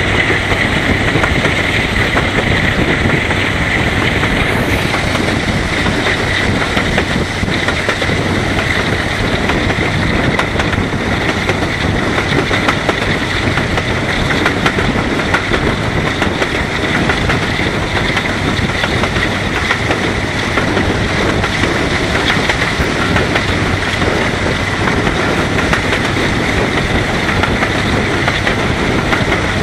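Diesel locomotive working steadily as it hauls a moving train, heard close by from the coach behind it, mixed with continuous wheel and rail noise from the running train.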